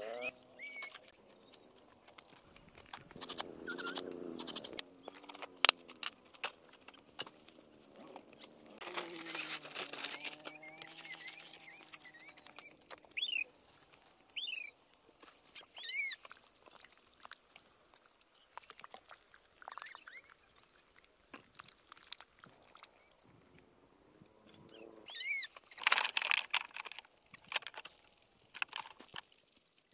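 Scattered animal calls: a couple of lower, drawn-out calls in the first half and several short high chirps later, among light clicks and knocks.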